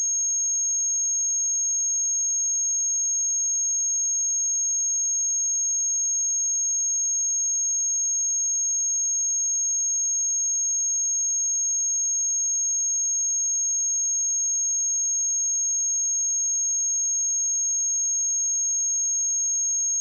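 A pure 6512 Hz sine-wave test tone, a single high-pitched steady whistle held at an even level.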